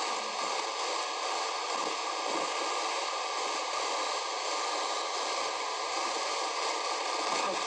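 Panasonic RF-562 portable radio's speaker giving a steady hiss of static as its tuning knob is turned between stations.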